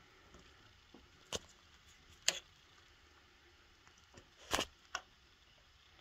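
Needle-nose pliers clicking and scraping against the old shaft seal inside a Volvo Penta MD2030 raw water pump housing as it is worked loose. Four sharp, irregularly spaced clicks, the loudest and longest one near the end.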